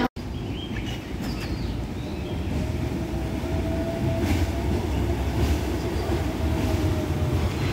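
Hong Kong Peak Tram fifth-generation funicular car running past on its rails: a steady low rumble of wheels on track, with a faint whine held from about two and a half seconds in until about seven seconds.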